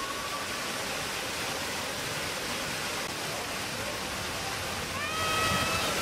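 Rushing water of a waterfall pouring over artificial rockwork: a steady, even splashing roar. A high-pitched voice sounds briefly about five seconds in.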